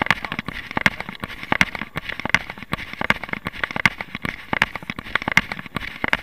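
A runner's footfalls on paving slabs at a steady pace, about three a second, with the rustle and knock of a hand-held camera jolting at each stride.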